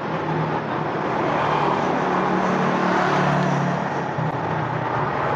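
Steady road traffic noise, the low hum of vehicle engines running continuously with no break.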